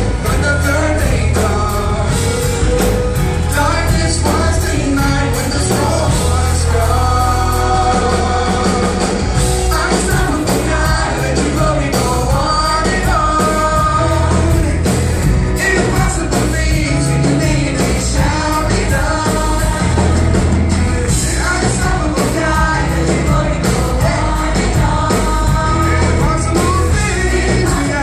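Live worship band playing a contemporary worship song: several singers over a full band with drums, loud and steady throughout.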